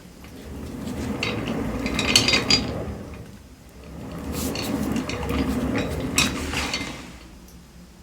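Secretlab Omega office chair's casters rolling across the floor, pushed twice, each roll a rumble with clicking and rattling from the wheels, which have become noisy with wear.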